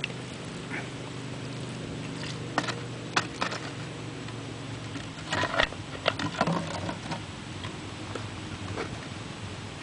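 Handling noise: scattered clicks, taps and light crunches as shoes and a bottle are moved about on rubble, thickest about five to seven seconds in, over a faint steady low hum.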